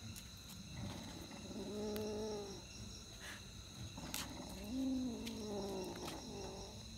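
Domestic cat giving two drawn-out low yowls of about a second each, the first about a second and a half in and the second about five seconds in, over a steady chirring of crickets.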